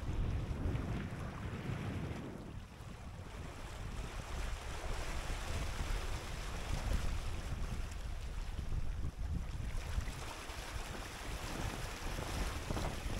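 Wind buffeting the microphone over the rush and splash of water along the hull and wake of a small sailboat under sail.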